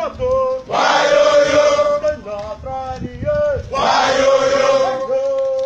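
A group of men chanting a call-and-response drill song: one voice sings a line and the whole group answers together, about every three seconds.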